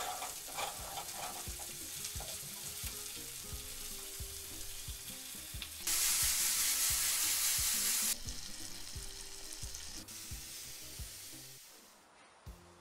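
Vegetables sizzling in cast-iron frying pans on a wood-fired stove, with a loud burst of sizzle about six seconds in that lasts about two seconds. Background music with a steady beat plays throughout.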